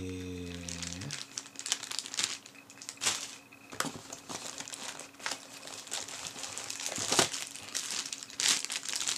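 Clear plastic bag around a cable crinkling and crackling as hands handle and unwrap it, in irregular sharp rustles throughout.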